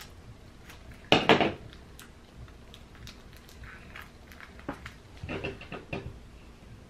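Metal scissors clatter onto a table about a second in, followed by small clicks and the crinkle of a paper-and-tape squishy being pressed and wrapped by hand, busiest around five to six seconds in.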